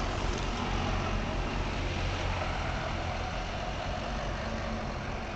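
Double-decker bus engine running as the bus pulls away and drives off, a steady low hum that slowly fades, over general traffic noise.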